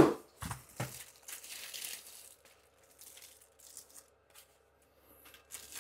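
Packaging rustling and crinkling as a boxed work light is unwrapped, busiest in the first two seconds, then a few faint rustles.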